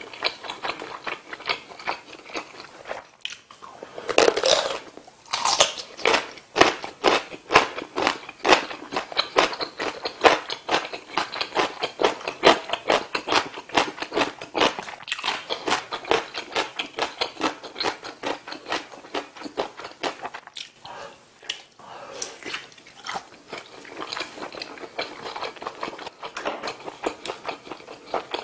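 Close-miked chewing and biting of skewered sausage and rice cake in spicy tteokbokki sauce: a rapid run of wet smacking and crunching mouth sounds, several a second, with brief pauses twice.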